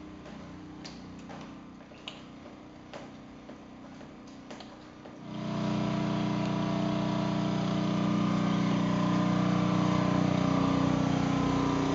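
A few light clicks and knocks. Then, about five seconds in, a loud engine drone comes in suddenly and runs steadily at one speed.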